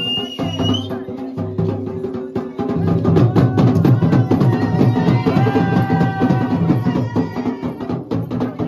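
Folk music for a mandan dance, driven by a fast, steady drum beat over sustained low tones; it gets louder about three seconds in as a held melody line joins.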